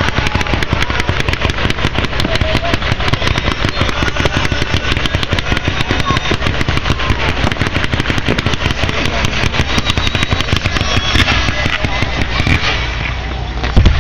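Fireworks going off in a long, rapid string of small bangs, many a second, like a machine gun. The string stops about twelve and a half seconds in, and a single loud boom comes just before the end.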